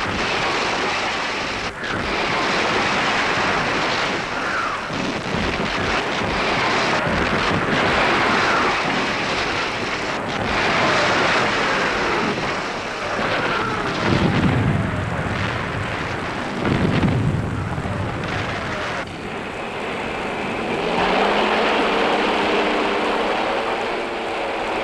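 Battle sound effects: shell explosions, several incoming shell whistles falling in pitch, and sharp cracks of gunfire over a dense rumble. Near the end a wavering engine-like drone takes over.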